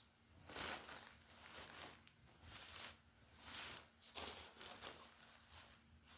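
Plastic packaging bag crinkling and rustling in a series of short bursts as it is handled and opened.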